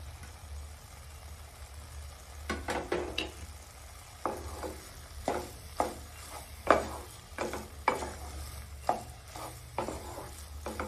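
Wooden spatula stirring noodles and vegetables in a non-stick kadai. About two seconds in, a run of short, uneven scraping strokes begins, roughly two a second, over a low steady hum.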